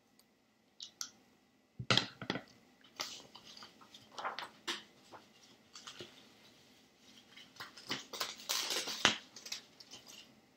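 Scissors snipping through paper in a string of irregular cuts, with the paper rustling as it is turned, starting about a second in.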